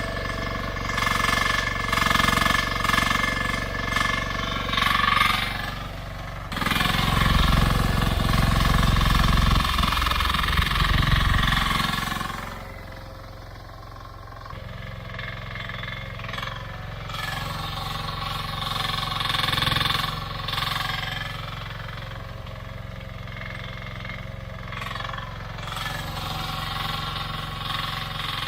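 Mini excavator's freshly repaired engine running. It gets louder and heavier for about five seconds partway through, then settles to a quieter, steady idle.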